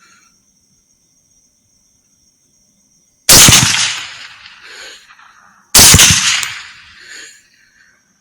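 Two rifle shots about two and a half seconds apart, each sudden and very loud, fading over more than a second with an echo rolling back afterwards.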